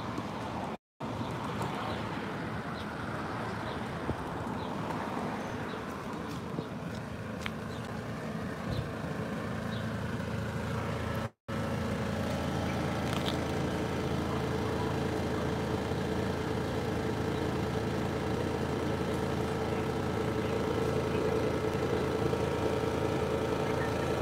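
A steady engine hum, as of an idling motor, over street background noise. The sound cuts out completely twice for an instant, about a second in and about eleven seconds in.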